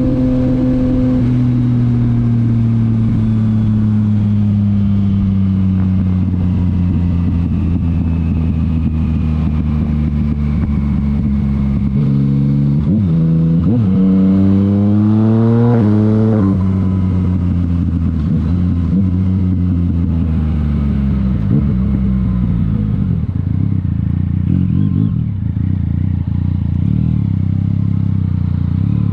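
Yamaha MT-09's three-cylinder engine through a titanium Akrapovič exhaust, heard while riding. The revs sink slowly for about twelve seconds, then the bike accelerates hard through several quick upshifts about a second apart, each a brief break in the rising revs from the quickshifter. Then the revs fall away to a lower, uneven running note.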